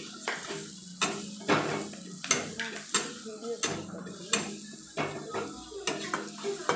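A metal spatula stirring food frying in a wok, knocking against the pan about every two-thirds of a second over a steady sizzle.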